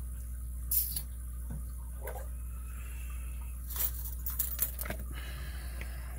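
A few light metal clicks and scrapes of lock-picking tools working in a Master Lock M15 padlock's keyway, over a steady low hum.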